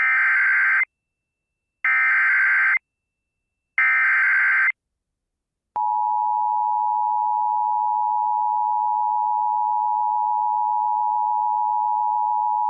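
Emergency Alert System tones from a Sage EAS Endec: three short, buzzy bursts of SAME header data, each about a second long and two seconds apart, then the steady two-tone attention signal from about six seconds in. Together they announce a Severe Thunderstorm Warning.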